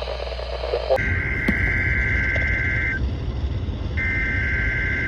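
NOAA Weather Radio EAS/SAME header data bursts from a radio/scanner speaker, opening a Required Weekly Test: two harsh, buzzing digital-tone bursts, each about two seconds long and a second apart, beginning about a second in, over a low rumble.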